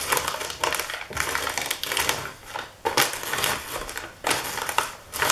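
Wooden rolling pin rolled in repeated strokes over a sealed pouch of freeze-dried strawberries, the dry berries crunching and crackling as they are crushed to a fine powder inside the package.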